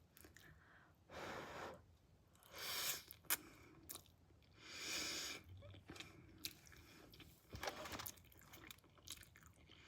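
Close-up chewing of Samyang Buldak spicy instant noodles, with three longer hissing bursts about one, three and five seconds in and a few sharp mouth clicks.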